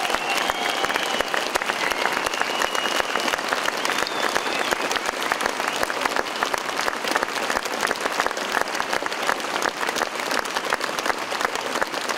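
Concert hall audience applauding, a dense steady patter of many hands clapping, with a thin high whistle-like tone over it in the first few seconds.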